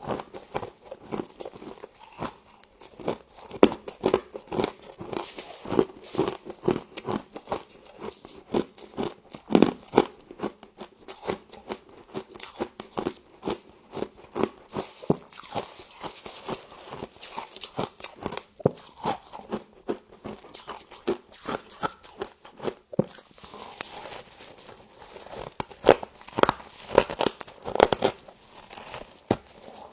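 Close-up crunching and chewing of humidifier frost, many rapid, irregular crisp crackles as the ice is bitten and chewed.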